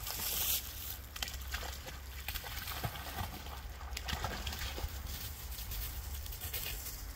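An Australian Shepherd wading through shallow swamp water, sloshing and splashing, with scattered small clicks. Near the end it climbs out and walks over dry fallen leaves.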